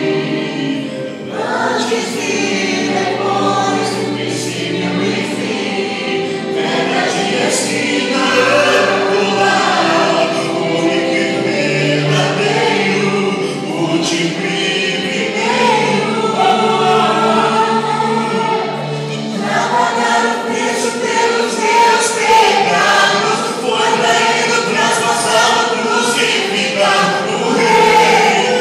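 A choir singing gospel music, several voices holding long notes over steady low notes.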